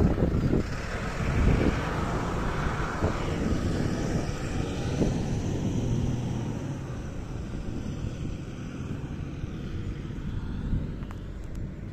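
A road vehicle driving away, its engine and tyre noise fading steadily. There are gusts of wind on the microphone at the start.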